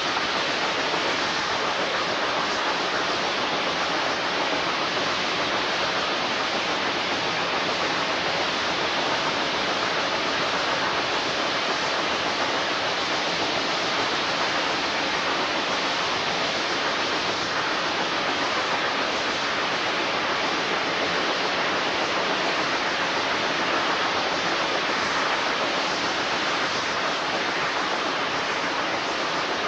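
Steady rushing noise of a steam train under way, heard from beside the locomotive: wind and running noise with no separate exhaust beats.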